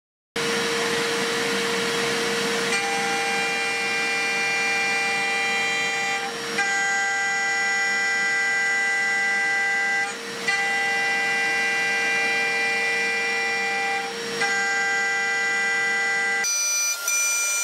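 DIY CNC mill's spindle driving a Holex 6 mm four-flute solid carbide end mill through C45 steel at 12,000 rpm: a steady whine, with a high singing cutting tone that joins about three seconds in. The sound breaks off briefly about every four seconds, and the set of tones shifts near the end.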